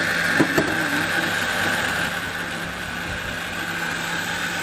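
Countertop electric blender running steadily, blending a pink beetroot juice, with two brief knocks about half a second in.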